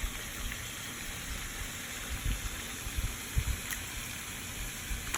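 Steady rush of running water, with a few soft low bumps over it.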